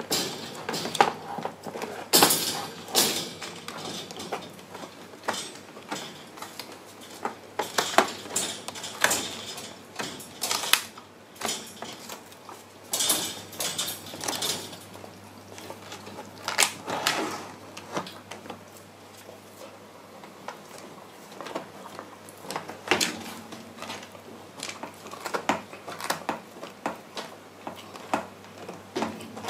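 White Shiba Inu gnawing and chewing a large knotted rawhide chew: irregular crunches, teeth clicks and knocks, coming in uneven clusters, some of them sharp and loud.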